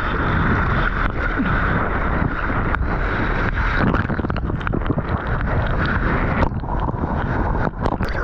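Wind and rushing water buffeting a GoPro 8's microphone while riding a breaking wave, with spray splashing against the lens. About six and a half seconds in, the sound turns duller as the camera is washed under the water.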